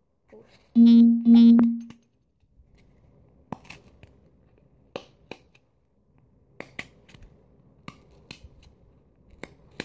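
Pencil point being pushed through a cardboard disc to make air holes: sharp little pops, often in pairs, about every second or so from about three seconds in. Near the start, two loud, steady hums of the same pitch come back to back and are the loudest sound.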